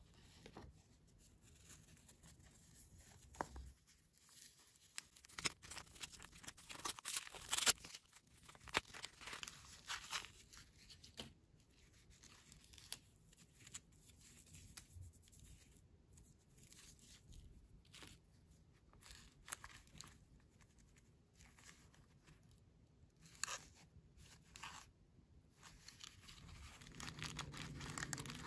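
Small cardboard toy box being torn open by hand, its flaps ripping and paper and plastic wrapping crinkling, in irregular bursts of tearing and rustling, loudest about seven or eight seconds in.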